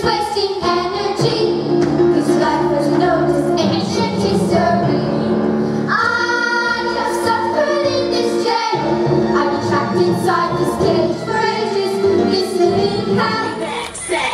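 A song with a steady beat and a group of young voices singing; the music changes about six seconds in and drops out briefly near nine seconds.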